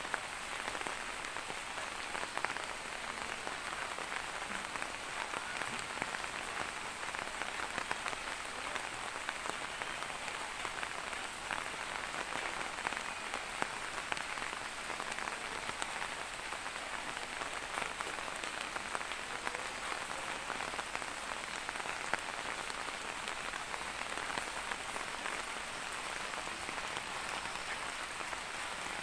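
Steady rain falling and pattering on surfaces, a constant hiss dotted with many small drop impacts.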